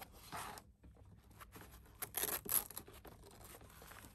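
Paper and foam packing rustling and scraping as they are lifted out of a foam-lined equipment case, in two short spells, the louder one about two seconds in.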